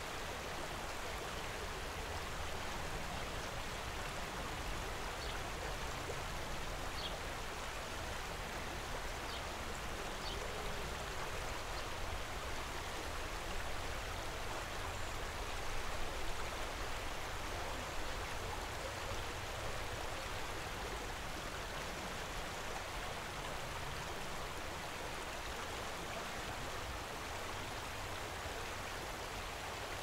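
A shallow river running over rocks and small rapids, a steady rushing of water.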